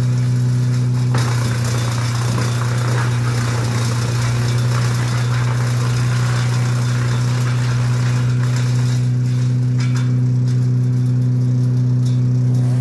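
An engine running steadily at one constant speed. A rough rushing, crackling noise lies over it from about a second in until about ten seconds.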